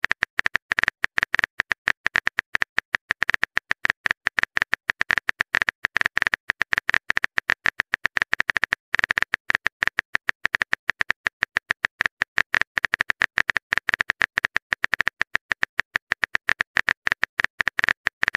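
Phone keyboard typing sound effect: rapid, even key clicks at about eight a second as a chat message is typed out, with a brief break about nine seconds in.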